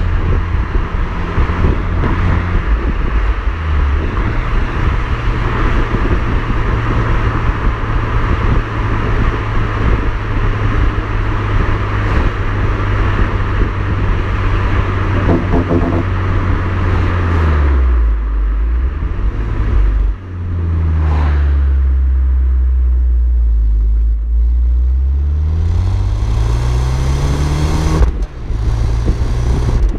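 Exhaust of an Alfa Romeo MiTo 1.4 turbo petrol four-cylinder, remapped from 120 to 159 hp, heard at the twin tailpipes while driving. The engine note holds steady, drops as the revs fall about two-thirds of the way in, then climbs steadily under acceleration, with a brief dip near the end at a gear change.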